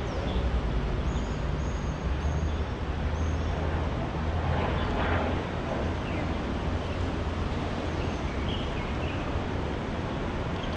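Steady traffic rumble from vehicles crossing the highway bridge overhead, with one passing vehicle swelling louder about five seconds in.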